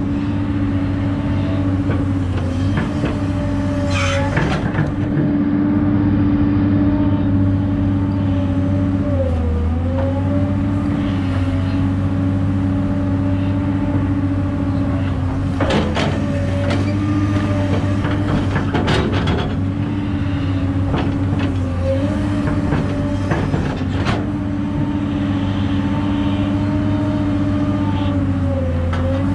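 Kobelco SK250LC excavator's diesel engine running steadily under load, its pitch dipping briefly every several seconds as the hydraulics work the boom and bucket. A few sharp knocks from the bucket and dirt stand out along the way.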